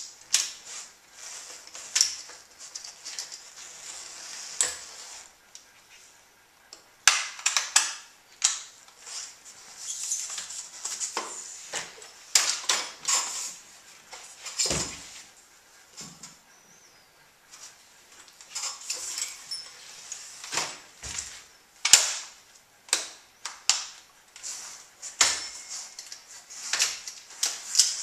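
EVO E-Dragon folding electric bike being folded and unfolded by hand: irregular metal clicks, clanks and rattles from its frame and parts. A few heavier knocks come in the middle and later part.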